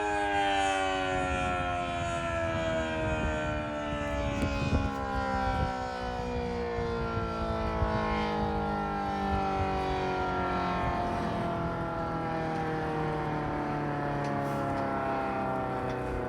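Model 5BT civil defense siren winding down, its pitch falling slowly and steadily.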